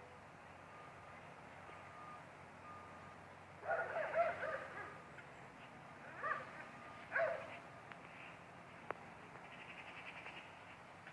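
Faint, evenly spaced beeps like a vehicle's reversing alarm, then a few loud short animal calls, the loudest about four seconds in, and a single sharp click near the end.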